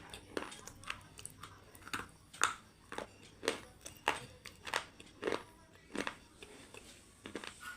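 Close-up chewing of crunchy French fries: irregular sharp crunches, the loudest about once a second with smaller crackles between, as the fries are bitten and chewed.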